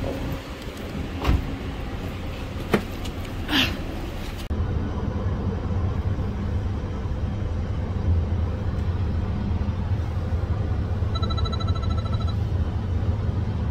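Steady low rumble of road and engine noise inside a moving car's cabin. Before it, a few sharp knocks at the car as people get in. Near the end comes a brief run of electronic beeps.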